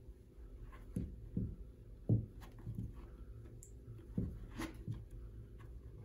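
Handling noise as a metal Jubilee clip is worked over the neck of a bagpipe bag onto the chanter stock: irregular soft knocks, small clicks and rustling, the strongest knock about two seconds in.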